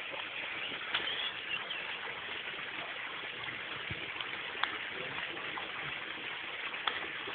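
Steady rush of running water, with a few faint clicks about one, four and a half, and seven seconds in.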